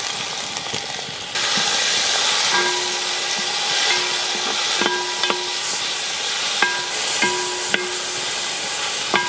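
Chopped vegetables (carrot, beans, cabbage and capsicum) sizzling in hot oil in a large metal pot, stirred with a metal spatula that scrapes and knocks against the pot. The sizzle grows louder about a second and a half in. Several knocks later on make the pot ring briefly.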